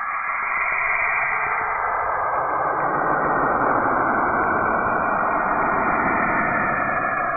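Saturn's radio emissions, recorded by a spacecraft and shifted into the range of hearing, played as a steady rushing hiss. The sound grows fuller and deeper over the first two or three seconds.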